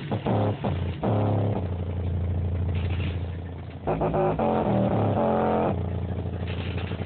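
Yamaha 10-inch subwoofer playing loud, bass-heavy music. Deep notes step in pitch every half-second or so, with one long low note held for about two seconds.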